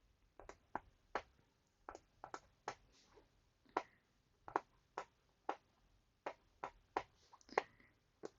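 Silicone pop-it fidget toy bubbles being pressed, a string of short soft pops at an uneven pace of about two a second.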